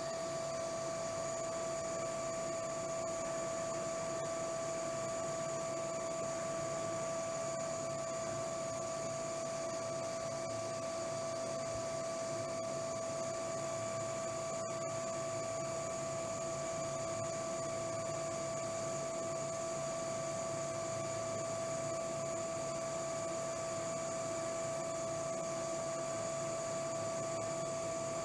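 CNC-converted South Bend lathe turning a steel ball crank handle under flood coolant: a steady, high-pitched whine from the machine over a constant hiss of coolant splashing on the work.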